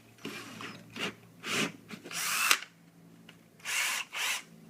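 Power drill triggered in several short bursts, the longest a little over two seconds in, with the bit just fitted in the chuck before drilling pilot holes.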